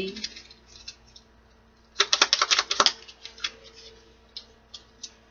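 Hands shuffling a thick mini deck of oracle cards: sharp card clicks, with a dense flurry of them for about a second, starting about two seconds in, and scattered single clicks before and after.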